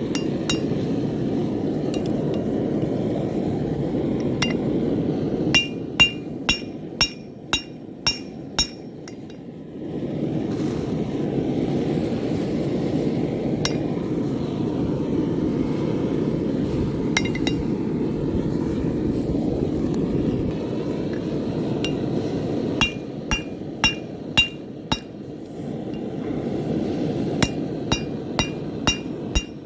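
Hammer blows on hot steel at the anvil, each strike ringing, in two runs of about two blows a second, a few seconds in and again near the end; between them the forge runs with a steady low rush.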